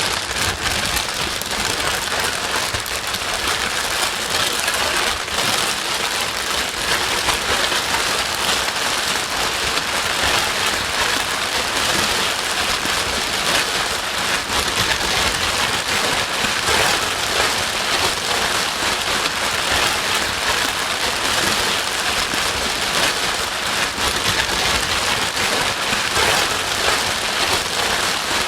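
Steady white-noise hiss, even and unbroken, of the kind played to settle a crying baby to sleep.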